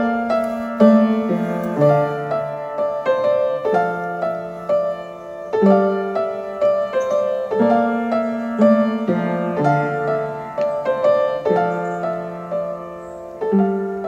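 Background piano music: a steady run of notes over a slow-moving bass line.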